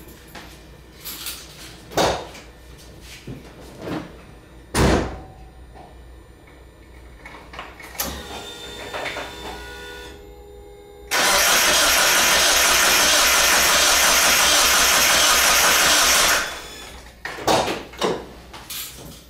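Mazda Miata's starter cranking the engine for about five seconds, a loud steady whirr that starts and stops abruptly, with the engine not catching: the car won't start. Scattered clicks and knocks come before and after the cranking.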